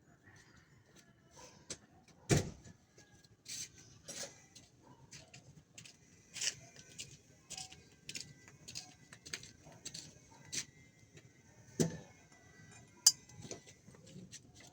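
Scattered sharp clinks and knocks of metal tools and parts being handled, the loudest about two seconds in and again near the end, over a faint steady hiss.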